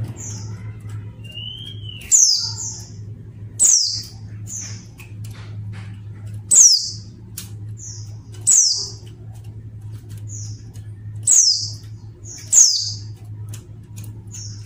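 Female white-eye (pleci) giving short, high, thin calls that fall in pitch, each with a brief second note, repeated every couple of seconds. This is the call used to lure male pleci into singing. A steady low hum runs under the calls.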